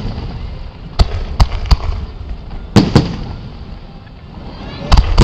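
Aerial firework shells bursting: sharp booms in quick clusters, three about a second in, two near the middle and two more near the end.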